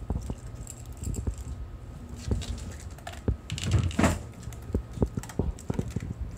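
German shepherd eating dry kibble from a bowl: a run of short crisp crunches and clicks as the food is picked up and chewed and the bowl is knocked, loudest about four seconds in.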